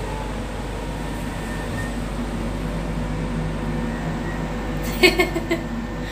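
Steady low hum of the air-conditioning in an enclosed observation-wheel gondola. A short burst of a voice comes about five seconds in.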